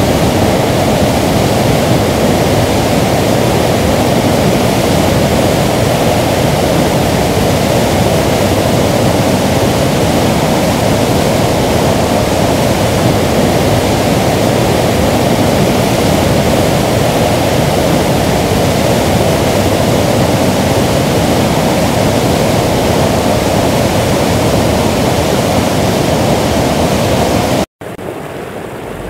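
Waterfall: a steady, loud rush of falling water that cuts out abruptly near the end.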